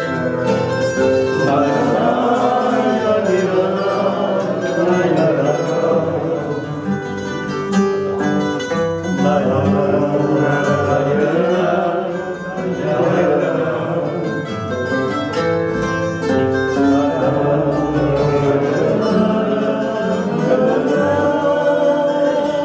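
Portuguese guitar and viola de fado playing an instrumental interlude of a fado.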